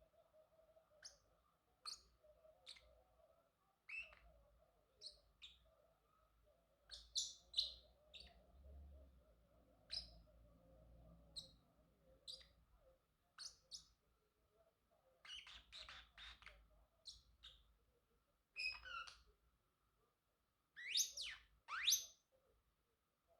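Male Pacific parrotlet chirping: short, high, separate chirps with gaps between them, a quick run of about four chirps past the middle, and two sweeping calls near the end.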